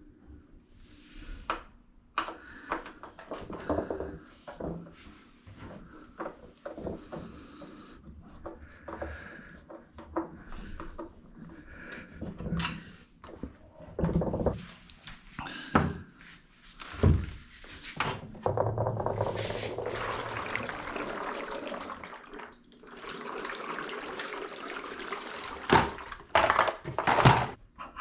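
Hard plastic knocks and clunks as the liquid-filled balance ring of a Sanlux SW-13UF8 top-loading washing machine is worked free and handled. About two-thirds of the way in come two longer stretches of the liquid sloshing inside the ring.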